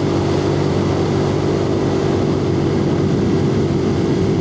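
Suzuki TU250X's single-cylinder, air-cooled 249 cc engine running at a steady cruise in fifth gear, heard from inside the rider's helmet over a steady rush of wind noise. The engine's note and its loudness hold even throughout.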